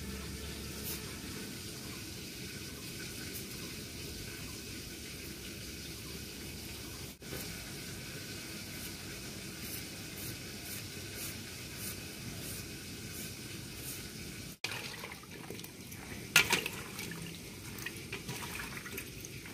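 A steady watery hiss with faint repeated scraping ticks of vegetables being cut by hand. About three-quarters of the way in come a few louder sharp splashes and clatters as cut vegetable pieces drop into a steel bowl of water.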